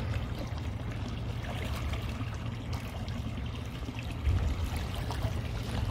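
Delaware River water washing and lapping at the shore, a steady wash with a constant low rumble underneath.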